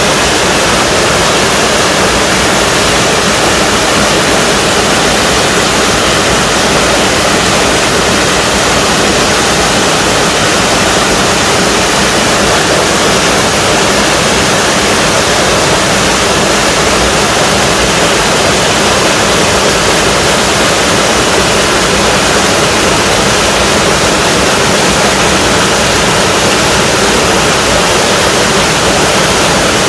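Small waterfall in a mountain stream, water falling and rushing in a loud, steady roar.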